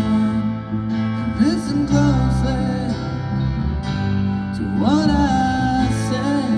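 Acoustic guitar music: a slow, steady accompaniment with a melody line that slides up into held notes about one and a half seconds in and again about five seconds in.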